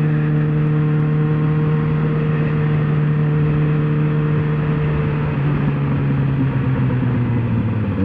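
Yamaha XJ6 600 cc inline-four motorcycle engine pulling steadily under way, over wind and road noise; its pitch drops a step a little after five seconds, as at a gear change, and rises quickly again at the very end.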